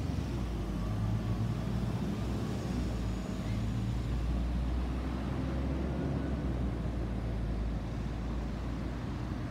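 Low, steady rumble of an Airbus A320-214's CFM56 turbofan engines after the flyover, with the higher frequencies faded, easing slightly near the end.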